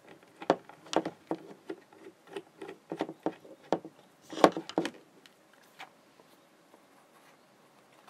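Clicks, taps and knocks of a camcorder being handled and fitted onto its holder's mounting screw: a string of sharp clicks through the first five seconds, then only a few faint ticks.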